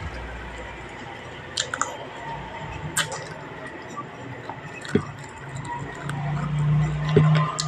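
A person chewing food, with wet, squishy mouth sounds and a few sharp clicks, and a low hum near the end.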